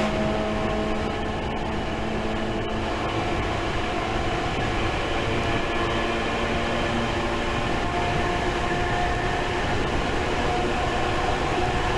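Tokyu 8500 series electric train running between stations, heard from inside the passenger car: a steady rumble of wheels on rail, with faint running tones, one of which comes in about two-thirds of the way through.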